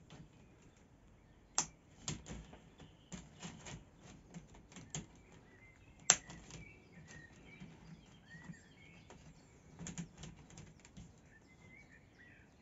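White plastic cross connectors of a Froli bed spring system being snapped together by hand: irregular light plastic clicks and clatter, with two sharper snaps about a second and a half and six seconds in.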